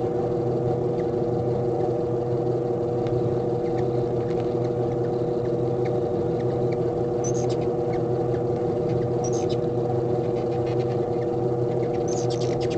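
Hummingbirds jostling at a nectar feeder give short high-pitched chip calls, in brief clusters about seven, nine and twelve seconds in, with faint ticks between them. A steady low hum runs underneath.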